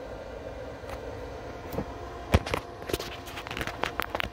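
Faint steady hum with a run of light knocks and clicks starting about two seconds in, the sharpest one near the middle.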